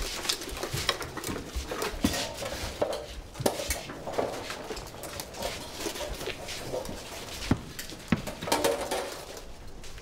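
Metal armour, helmets and fittings clinking and knocking as soldiers arm themselves, in irregular sharp clanks.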